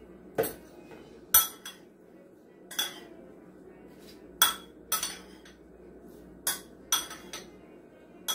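A metal utensil stirring coleslaw in a ceramic bowl, clinking against the bowl about nine times at uneven intervals as the cabbage, onion and dressing are mixed.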